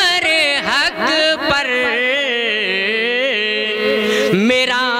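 A man singing a naat, an Urdu devotional poem in praise of the Prophet, in a melodic chant. He holds long, wavering notes with ornamented turns and no break.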